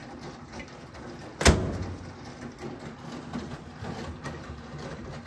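A laundry machine's metal door bangs once, sharp and loud, about one and a half seconds in, with a short low rumble after it. Underneath, a washing machine runs with a steady noise and light clicks.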